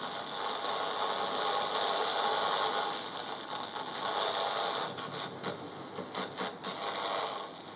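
Static hiss from a small portable AM radio as it is tuned through the band in search of a nearby 50 mW AM transmitter's carrier. A few light clicks come in the second half.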